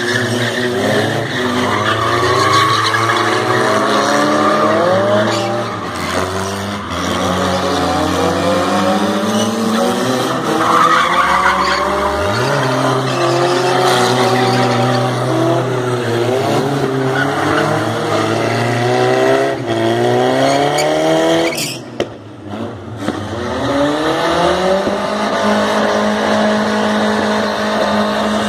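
Small pickup doing burnouts and donuts, its engine held at high revs while the rear tyres squeal and wail against the concrete. About 22 seconds in the revs drop off briefly, then climb back as the spinning resumes.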